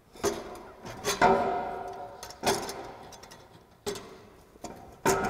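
Aluminized steel exhaust tubing knocking and clinking as the pipes are pushed together at their slip joints. There are about six knocks, and each one rings briefly.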